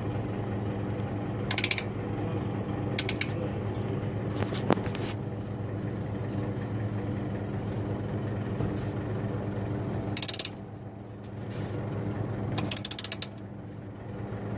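17 mm ratcheting combination wrench turning a fastener: short bursts of quick pawl clicks each time the handle is swung back, several times over, with a steady low hum underneath.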